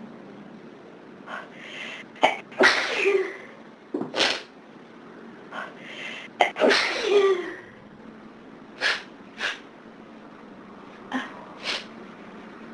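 A person's hay-fever sneezing fit: a run of sudden, explosive sneezes. The three loudest come between about two and seven seconds in, followed by shorter, quieter bursts.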